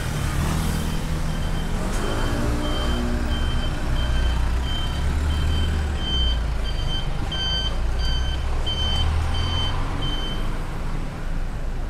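A vehicle's reversing alarm beeping at one high pitch about twice a second over a low engine rumble. The beeps grow louder and stop shortly before the end.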